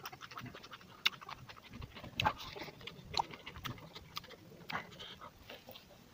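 Close-up chewing and lip-smacking while eating pork and rice by hand: irregular wet clicks and smacks, several a second.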